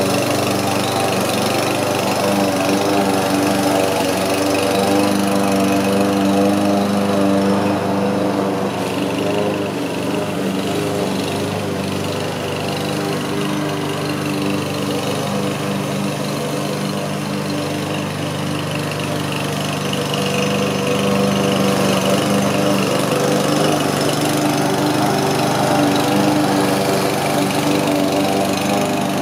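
Radio-controlled lawn mower's small engine running steadily under load as it cuts grass. It grows a little quieter in the middle as the mower moves away across the lawn, then louder again as it comes back close.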